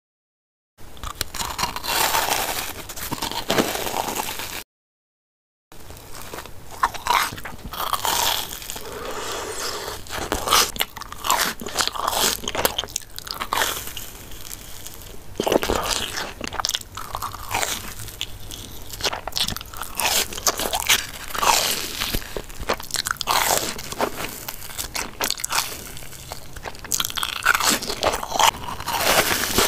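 Biting into and chewing fried cheese balls: repeated crisp crunches as the fried shell breaks, between stretches of chewing. A brief gap of silence falls about five seconds in.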